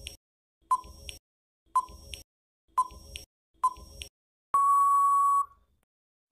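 Quiz countdown-timer sound effect: four short beeps about a second apart, then one longer steady beep lasting about a second that marks time running out.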